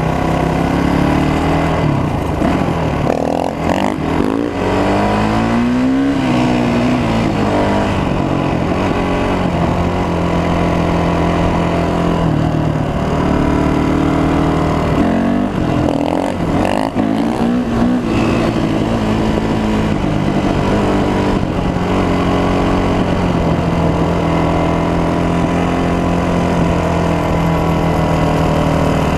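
Honda 450 dirt bike's engine running under way, mostly holding a steady pitch but revving up and down twice, around a few seconds in and again past the middle, as the rider works the throttle and gears. A constant rush of wind and road noise runs under it.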